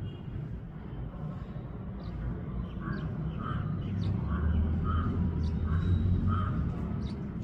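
A crow cawing in a steady series of about seven calls, roughly two a second, over a low background rumble.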